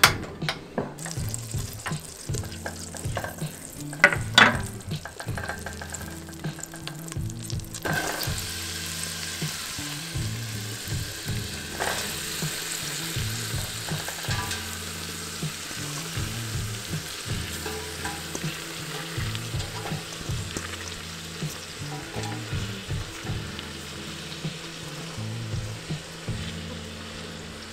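Butter and olive oil sizzling in a stainless steel stockpot as handfuls of sliced onions are dropped in. A couple of sharp knocks about four seconds in, then a steady sizzle from about eight seconds in.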